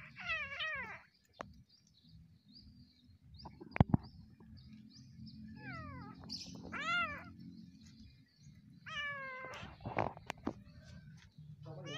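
Small kitten meowing while a monkey holds it down: about four high cries that rise and fall in pitch. Between them come a few sharp knocks, the loudest about four seconds in.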